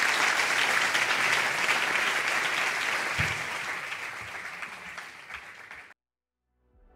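Large audience applauding, with dense clapping that thins out over the last few seconds and then cuts off abruptly. A short silence follows, and music starts just at the end.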